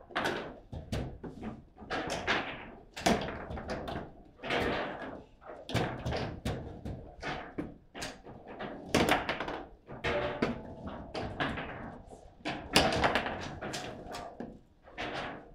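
Table football in play: the ball knocked by the plastic figures on the rods and clacking off the table's walls, an irregular run of sharp knocks, a few a second, with the hardest hits near the middle and about two-thirds of the way through.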